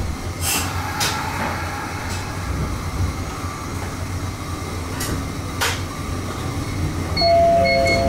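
Toyama Chihō Railway 14760-series electric train running, heard from inside: a steady low rumble with pairs of sharp wheel clicks over rail joints, about half a second in and again about five seconds in. About seven seconds in a steady two-note tone sounds and the level rises.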